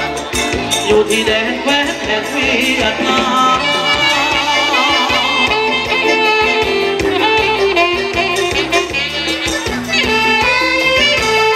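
Live Thai ramwong folk-dance band music: a singer over a steady drum beat and instrumental melody.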